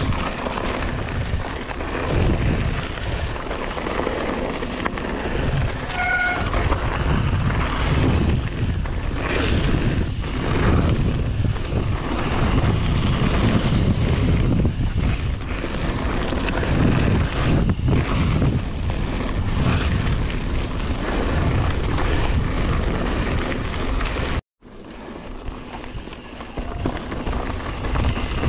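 Mountain bike riding a wet forest trail: steady rumble of wind buffeting the microphone, with the tyres and bike rattling over the dirt. A brief squeak comes about six seconds in, and the sound cuts out for a moment near the end.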